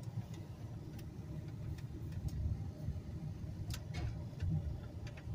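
Car driving slowly, its engine and road rumble heard from inside the cabin, with a few faint light clicks.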